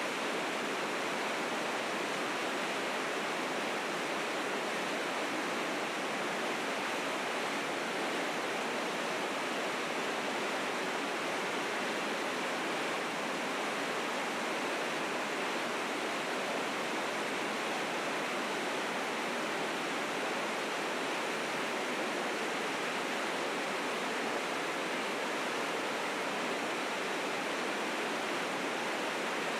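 River rapids rushing steadily, the river running high and fast with spring snowmelt.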